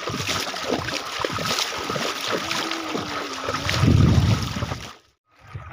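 Wind buffeting the phone's microphone over the wash of shallow river water, with a strong gust about four seconds in. The sound cuts out abruptly for half a second near the end.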